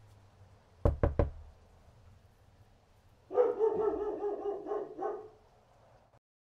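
Three sharp knocks in quick succession, then a dog barking in a quick run for about two seconds.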